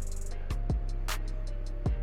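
Background music with an electronic beat: deep kick drums that drop in pitch, crisp hi-hats and a steady bass line.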